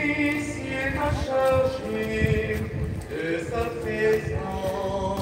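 Slow singing: a voice holding long notes in a chant-like melody, changing note about once a second.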